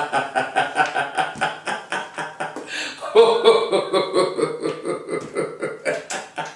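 A man laughing heartily, a long run of quick, even "ha-ha" pulses, with a fresh, louder burst of laughter about three seconds in.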